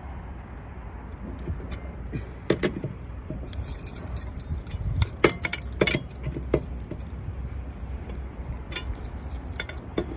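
Metal tools clinking and jangling as they are handled, with a cluster of sharp metallic clinks between about two and seven seconds in and a few more near the end, over a steady low hum.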